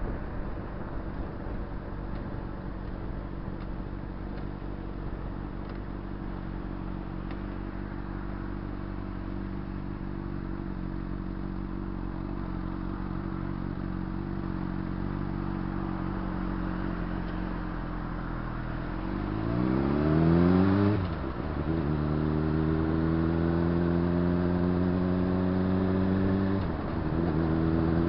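Honda CBR600RR inline-four engine running steadily at low revs in slow traffic. About two-thirds of the way through it accelerates hard, revs sweeping upward. The note drops briefly at a gear change, pulls again, and dips once more for another shift near the end.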